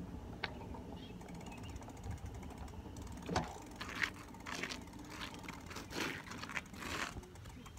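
Bicycle rolling over pavement, heard from a phone strapped to its handlebars: a steady rumble with clicks and rattles, and several louder knocks in the second half.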